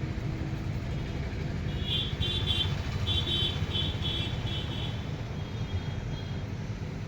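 Steady street traffic rumble, with a run of short, high-pitched chirps about two seconds in that fade out over the next two and a half seconds.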